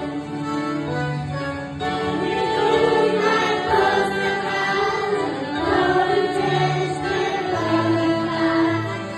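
A group of young children singing a worship song together in unison, led by a girl singing into a microphone and strumming an acoustic guitar.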